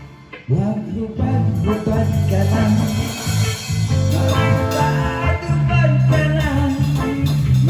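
Live band music with a strong bass line. The sound drops away for about half a second at the start, then the band comes back in with a rising glide in the low notes and plays on.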